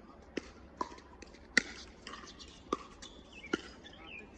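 Pickleball rally: sharp paddle-on-ball pops and ball bounces on the court, five or six hits about half a second to a second apart, the loudest about a second and a half in.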